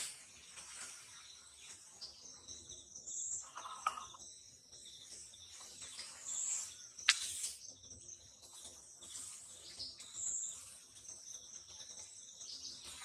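Wild birds chirping and insects calling: short, high chirps repeating every second or two. One sharp click about seven seconds in is the loudest sound.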